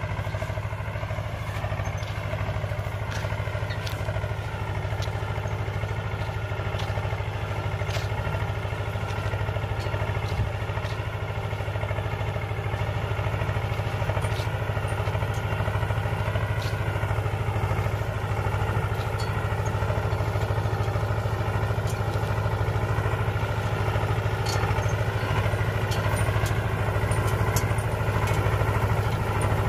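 Tractor engine running steadily while driving a boom sprayer across the field, a continuous low drone that grows slightly louder as the tractor comes closer.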